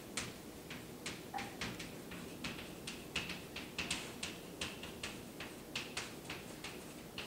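Chalk writing on a blackboard: a faint, irregular run of quick taps and scratches, several a second.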